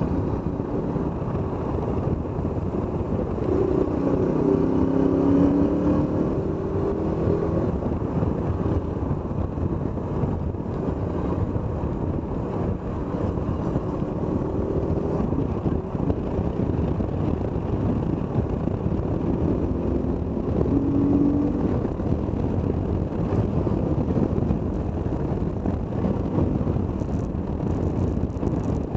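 KTM motorcycle engine running while riding, over steady wind and road noise; the engine note rises and falls, most clearly about four seconds in and again about twenty seconds in.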